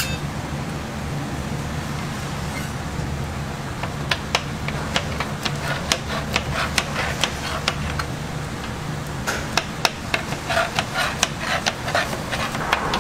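Spatula blade repeatedly knocking against a metal griddle tray as it chops through a layer of shredded cabbage and egg, starting about four seconds in and growing quicker near the end, over a steady low hum.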